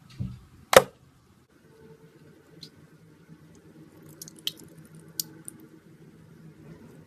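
Slime being squeezed and worked by hand, squishing with small sticky clicks and pops, over a faint steady hum. A low thump and a sharp loud click come in the first second.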